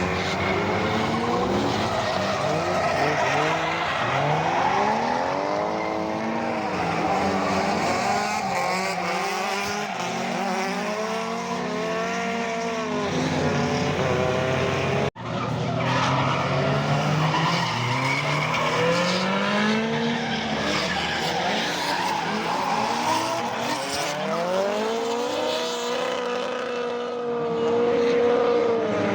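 Drift cars on track: engines revving up and down repeatedly, with tyres squealing and screeching as they slide. The sound cuts out abruptly about halfway through, then picks up again with another car.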